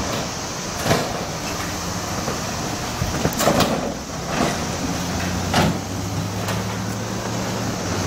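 Road vehicles driving over a railroad grade crossing, their tires knocking over the rails about five times, a utility truck towing a trailer among them. A steady hiss runs underneath.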